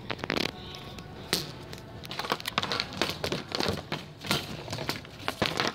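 Handling noise from a camera being fumbled into a shopping cart: irregular clicks, knocks and rubbing against the cart's metal wire basket and plastic seat.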